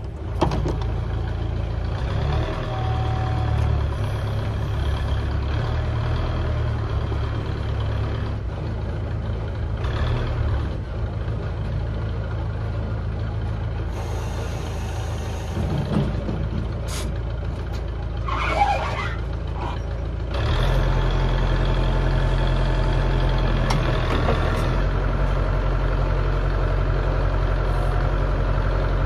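Backhoe's diesel engine running steadily, speeding up and getting louder about twenty seconds in, with a few brief clicks and knocks shortly before that.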